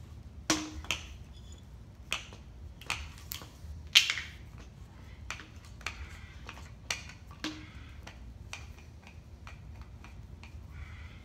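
Irregular clicks and knocks of plastic strap wrenches gripping and turning the plastic housing of a MiniDos 10 dispenser as its bottom section is loosened. The loudest knock comes about four seconds in.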